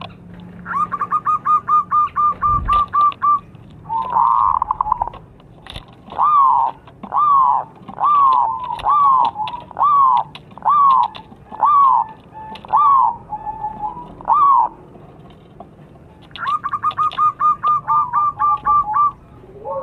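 Zebra dove (perkutut) cooing: a quick run of short, even notes, a burry note, then about ten drawn coos, each falling in pitch, under a second apart, and another quick run near the end.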